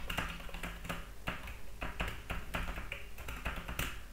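Typing on a computer keyboard: a quick, irregular run of key clicks, several a second.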